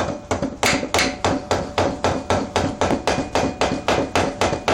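Rapid, even hammer taps on a bolted-on metal part of a Briggs & Stratton small engine, about five strikes a second, each with a short metallic ring. The part is being tapped around its edges to loosen it off the engine.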